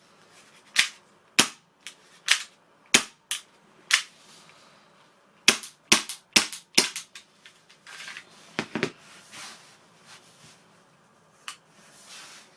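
Sharp metallic clicks and snaps from the working parts of an Action Army AAP-01 airsoft pistol being handled, about a dozen in two quick clusters in the first seven seconds, then a few more with some soft rustling.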